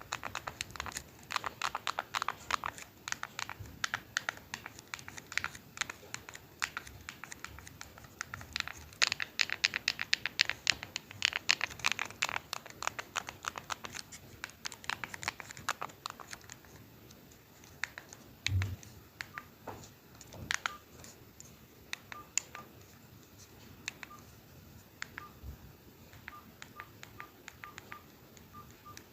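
Rapid, dense crinkling and tapping clicks on plastic that thin out about halfway through. They give way to a series of short, single-pitched keypad beeps as buttons are pressed on an old Nokia mobile phone.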